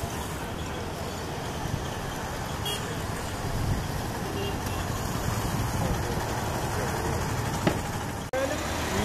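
Steady, distant jet engine noise from a Boeing 777-300ER's GE90 engines as the airliner taxis and lines up on the runway. The sound cuts off abruptly about eight seconds in, and voices follow.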